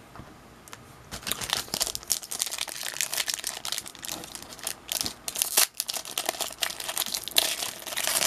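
Plastic trading-card pack wrapper being torn open and crinkled by hand, crackling and rustling from about a second in.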